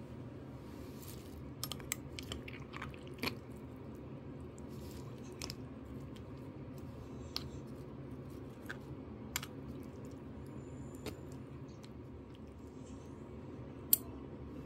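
Metal chopsticks and a fork clicking and scraping against an earthenware pot as sauce-coated pasta is stirred and lifted. There are a dozen or so scattered sharp clicks, the loudest near the end, over a steady low hum.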